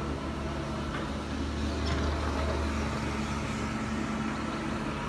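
Bobcat mini excavator's diesel engine running steadily, a low even drone with a steady hum.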